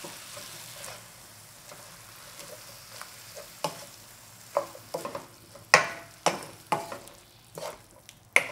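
Oyster mushrooms, carrot and garlic chives sizzling faintly in a wok on the remaining heat. From about three and a half seconds in, a wooden spatula stirs and tosses them, knocking sharply against the pan roughly every half second.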